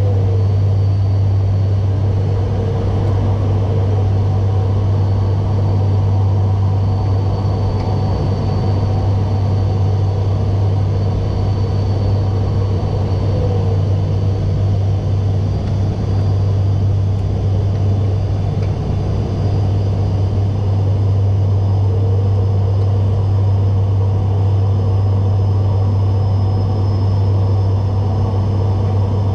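The ATR 72-600's Pratt & Whitney PW127M turboprops heard from inside the cockpit: a loud, steady, low propeller drone over a hiss of airflow.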